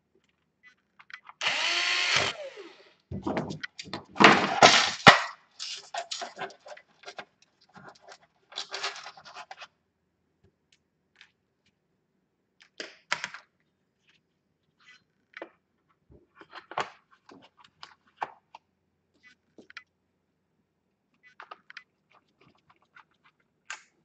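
Cordless electric screwdriver whirring in three short runs in the first five seconds as it turns screws in the laptop's plastic underside, the first run with a wavering pitch. Scattered small clicks and taps of screws and hand tools on the plastic case follow.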